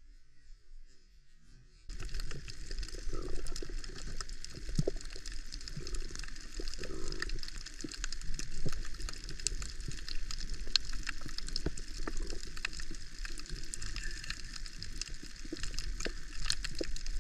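Underwater sound: a dense crackle of many sharp clicks over a water hiss and low rumble, starting suddenly about two seconds in.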